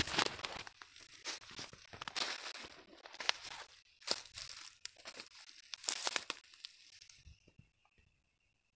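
Footsteps crunching through dry leaf litter and twigs, an irregular run of crunches that stops about seven seconds in, leaving a faint steady high tone.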